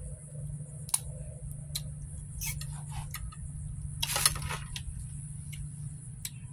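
Boiled blue crab shell being cracked and picked apart by hand: scattered sharp clicks and snaps, with a louder burst of cracking about four seconds in, over a steady low hum.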